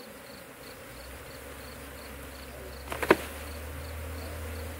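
Honeybees buzzing around an opened hive, stirred up by the comb being handled, with a sharp knock about three seconds in.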